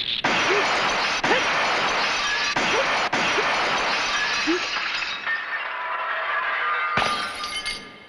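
Cartoon sound effect of glass shattering in a blast: a long crash of breaking glass with several sharp impacts in the first three seconds, thinning out as the shards fall, then a short second crash near the end.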